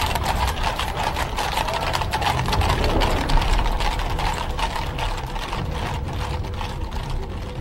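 A steady clatter: many rapid, irregular clicks over a low rumble, easing slightly near the end.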